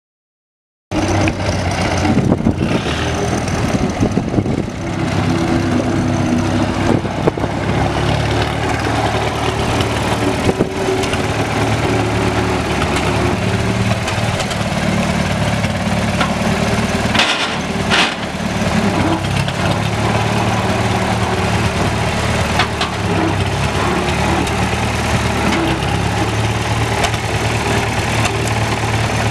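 Allis-Chalmers WC tractor's four-cylinder gas engine running steadily at idle, with a brief dip in the sound past the middle.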